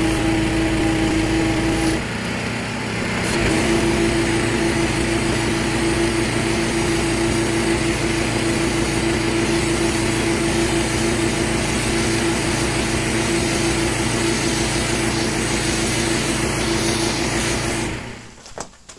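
Small gasoline engine of a pressure washer running steadily with the hiss of the water spray. It dips briefly about two seconds in, then runs on until it drops away near the end.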